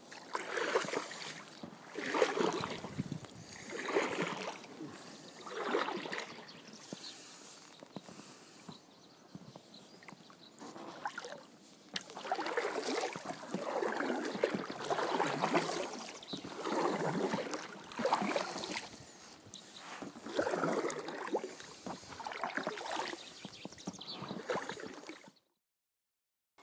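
Kayak paddle strokes: the blades splash and slosh into the water in a steady rhythm, about one stroke every two seconds, then a short lull, then a quicker run of strokes. The sound cuts off suddenly near the end.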